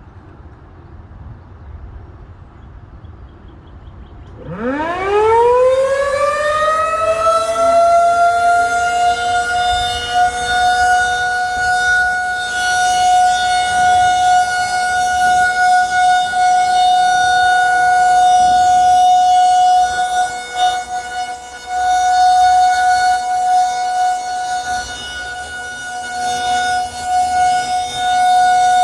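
Outdoor civil-defense warning siren starting about four seconds in, winding up from a low pitch to a steady high tone and holding it, its loudness rising and falling. It is the siren's scheduled weekly test.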